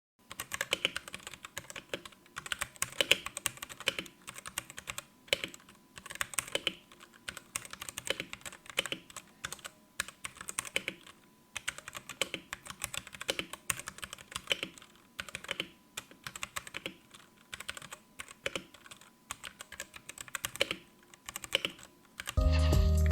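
Typing on a Rexus Daxa M71 Pro mechanical keyboard with Gateron Brown tactile switches: a fast, uneven stream of key clicks.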